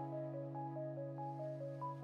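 Background music: a soft melody of short stepping notes over long held chords.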